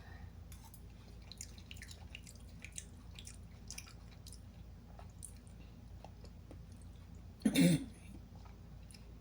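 A person chewing a mouthful of instant noodles, with many small wet mouth clicks. About seven and a half seconds in comes one short, louder vocal sound, like a cough or throat clearing.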